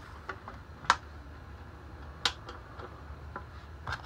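Sharp clicks as the two halves of a vintage Johnson outboard hood are closed and latched: one loud click about a second in, a second about a second and a half later, and a few lighter ticks.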